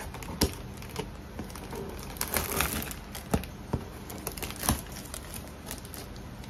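Paper packing material rustling and crinkling as it is pulled and crumpled out of a shipping box, with a few sharp crackles and knocks in between.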